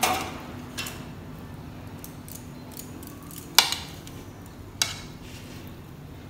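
Steel spoon clinking and scraping against a ceramic plate while scooping potato curry: four sharp clinks, the loudest about three and a half seconds in.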